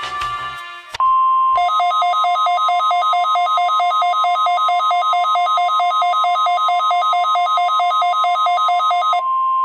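NOAA Weather Radio alert tones during a required weekly test: a steady single-pitch tone, joined within a second by a rapid, evenly pulsing two-pitch beeping that runs for about seven and a half seconds, then the steady tone alone again. The last second of an electronic music intro comes just before the tone.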